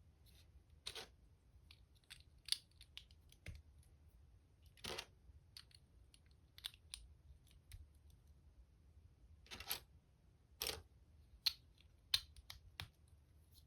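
LEGO bricks being handled and snapped together: scattered light clicks with a few short rustles of plastic parts.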